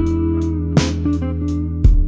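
Slow blues music with no singing: guitar and bass over a drum beat, with a cymbal hit about a second in and again near the end.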